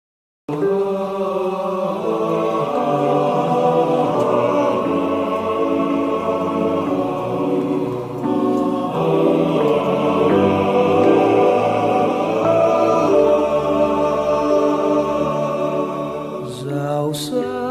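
Score music with choir-like sung voices holding slow, sustained chords. It starts abruptly about half a second in, out of silence.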